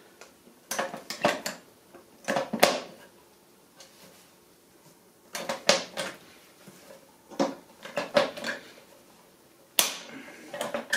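Hand pop-rivet tool squeezed in short strokes to set blind rivets: metallic clicks and clacks in about six bursts, the sharpest a little under three seconds in and near the end.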